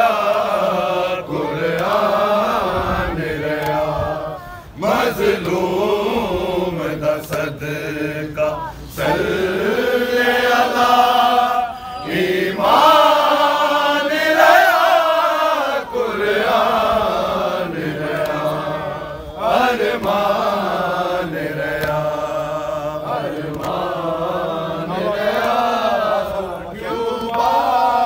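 Men's voices chanting a noha, a Shia mourning lament, in long rising and falling phrases with no instruments.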